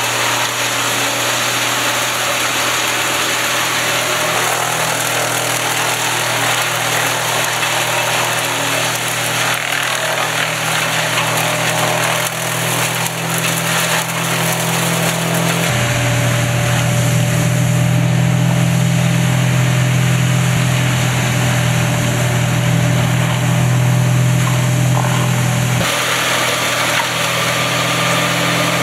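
Salsco 813XT wood chipper's engine running steadily. About halfway through, its low note grows heavier and louder for about ten seconds, then drops back to the earlier steady running.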